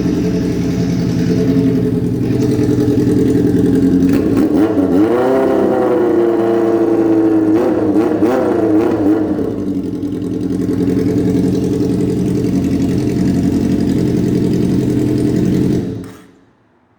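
Honda CBX 750F motorcycle's inline-four engine idling, then revved up about four seconds in and held at raised revs with a few blips for several seconds before dropping back to idle. The engine sound stops about a second before the end.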